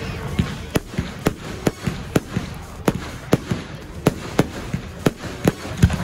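Aerial fireworks going off in a rapid, fairly even run of sharp bangs, about three a second.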